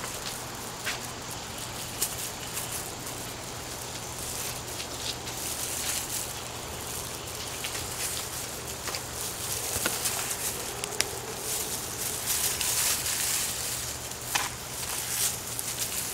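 Hands digging and sifting through loose potting soil in a potato container: a steady rustling with scattered small clicks and crackles.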